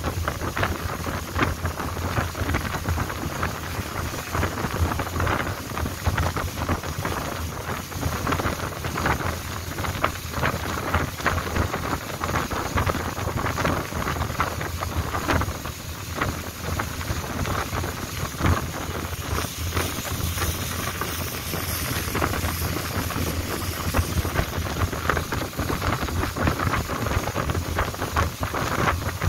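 Long-tail boat under way: the steady drone of its engine under heavy wind buffeting on the microphone and the rush of water past the hull.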